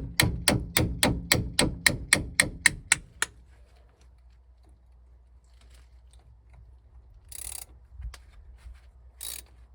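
Rapid, evenly spaced sharp metallic strikes, about four or five a second, from tools working to break seized bolts free on a 2000 Ford F-150's front brake and hub assembly. They stop about three seconds in. Later come a faint low hum and two brief noises.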